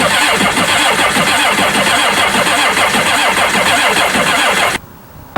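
Kawasaki STX-12F jet ski's three-cylinder four-stroke engine being cranked by its electric starter for about five seconds without catching, then cut off suddenly. It does not fire because the fuel pump is getting no power, so no fuel reaches the injectors.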